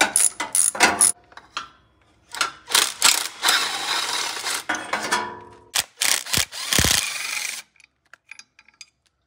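Socket ratchet clicking quickly as a 15 mm exhaust-mount bolt is worked loose, then a cordless power tool whirring in two runs of about a second and a half each as the bolts are spun out.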